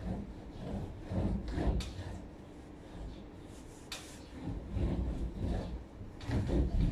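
A cloth wiping carved wooden lattice panels: irregular rubbing with dull wooden knocks and a few sharp clicks as the panels shift in their frame.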